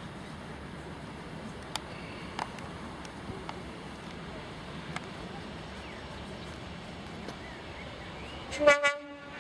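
Steady outdoor background noise with a few faint clicks, then near the end a short, loud horn blast in two quick pulses from the approaching DRS Class 37 diesel locomotives.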